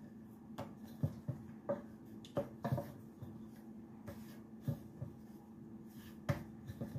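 Wooden rolling pin and hands working a ball of empanada dough on a floured wooden cutting board: a series of light, irregular knocks with soft rubbing between them.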